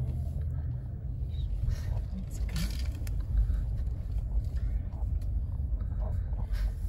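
Car engine running at low speed, a steady low rumble heard from inside the cabin as the car creeps forward.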